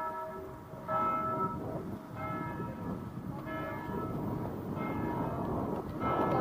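Church bell tolling, with a stroke about every 1.3 seconds, each stroke ringing on and fading before the next, over steady background noise.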